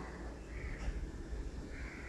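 Granulated sugar poured from a small glass bowl into a glass mug of curd: a faint, soft hiss that comes and goes, over a low background hum.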